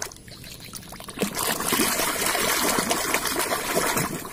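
Water pouring and trickling over a large muddy plastic toy as it is washed, starting about a second in after a few light clicks of handling.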